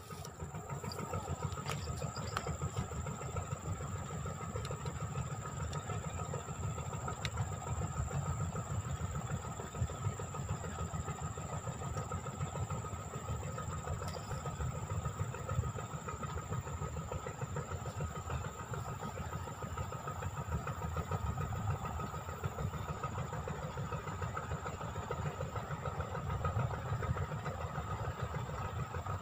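Steady low rumble of outdoor noise, with a constant high, thin insect whine above it.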